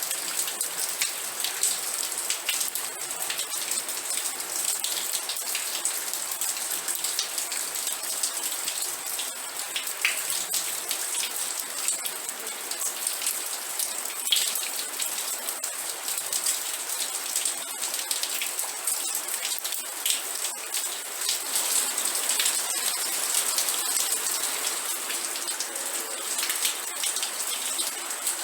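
Steady rain falling, dense patter of drops hitting a surface with many small individual drop ticks.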